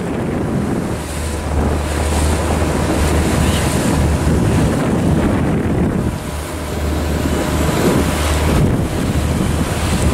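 Wind buffeting the microphone on a boat out on open water, over the steady low drone of the boat's motor.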